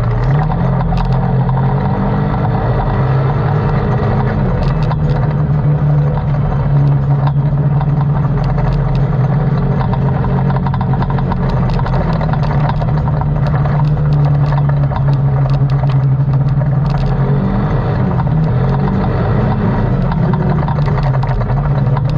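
ATV engine running under way, its pitch rising and falling a few times with the throttle.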